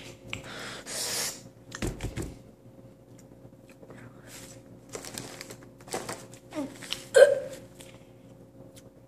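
A boy gagging and gulping, short hiccup-like throat sounds, while struggling to get down moldy chocolate, with breathy exhales between them; the loudest gulp comes about seven seconds in.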